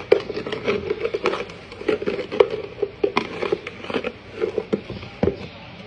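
Kitchen knife working quickly against a hard surface: a fast, irregular run of sharp knocks, several a second, that stops about five seconds in.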